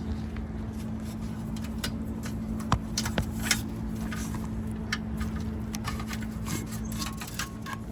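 Scattered light clicks, scrapes and rattles as a seat-adjustment cable is fed up through a hole in a bus seat's frame, over a steady low hum.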